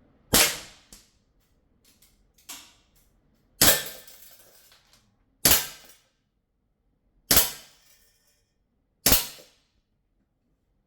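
Sig Sauer Colt 1911 CO2 air pistol firing five sharp shots, spaced roughly two seconds apart, with faint clicks between them.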